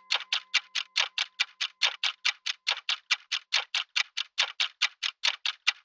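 Clock ticking fast and evenly, about six ticks a second. A ringing tone fades out under the ticks in the first second.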